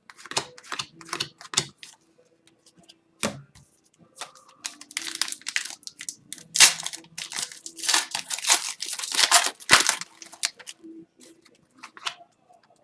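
Hands opening and going through a pack of Upper Deck hockey cards: a run of clicks and card flicks, with tearing and crinkling from the pack wrapper, busiest in the middle.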